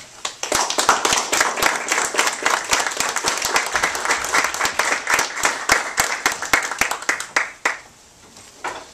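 Audience applauding, a dense run of many hands clapping that fades away about eight seconds in, with a few last claps near the end.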